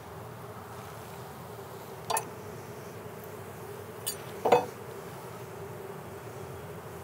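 Honeybee colony buzzing steadily around an open nuc box, with a few sharp knocks as frames are handled in the box: one about two seconds in and a louder pair around four and a half seconds.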